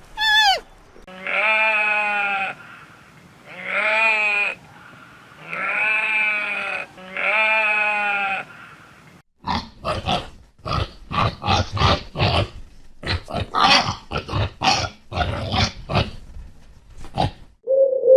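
A farm animal bleating four times in long, wavering calls about a second and a half each, then a rapid string of short, harsh grunting calls in the second half.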